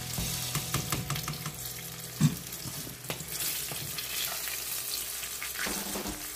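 Chicken wings sizzling in hot oil at the end of their second deep fry, with scattered short clicks.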